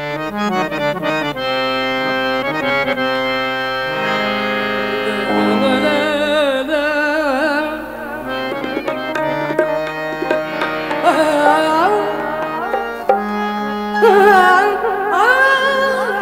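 Qawwali music: a harmonium plays held chords and a melody over tabla. About five seconds in, a voice joins, singing long notes with a wavering, ornamented pitch.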